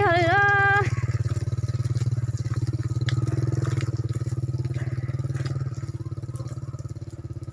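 Motorcycle engine running steadily, a little quieter about six seconds in. A voice is heard briefly at the very start.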